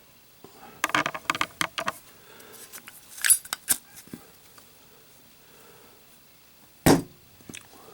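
Zippo lighter with a steel insert clicking and clinking as it is handled for a drop test: several quick metal clicks about a second in, a few sharper ringing clicks around three seconds, then one loud metal clack about seven seconds in.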